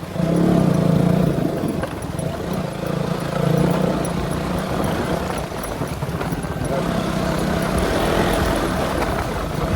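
Motorcycle engine running steadily while the bike is ridden along the road, getting louder just after the start.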